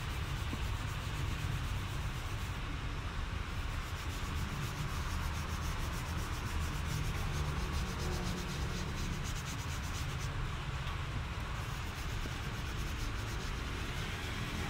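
A hand scrubbing the back of a leather car seat, a steady rubbing noise over a constant low rumble.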